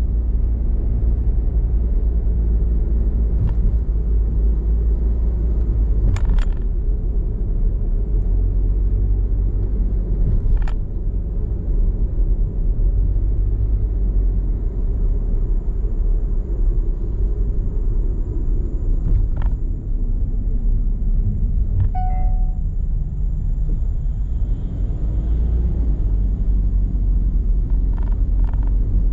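Car driving: a steady low rumble of engine and road noise, broken by a few short sharp clicks.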